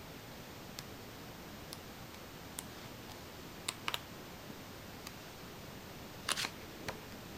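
Pages of a large art book being turned by hand: a few faint crisp paper flicks and clicks, with a louder page flap about six seconds in, over a steady low hiss.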